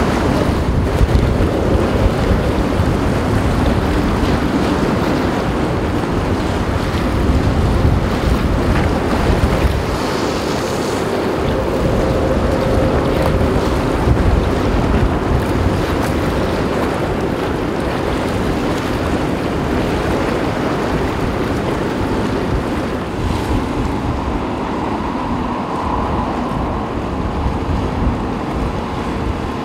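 Wind buffeting the microphone over a choppy sea, with a ro-ro passenger ferry's engines and propeller wash as it manoeuvres astern toward the quay. A faint steady hum runs under the wind noise.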